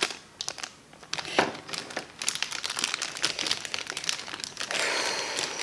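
Thin clear plastic bag crinkling as hands squeeze and work it. After a quiet first second, the crackles come thick and fast, densest near the end.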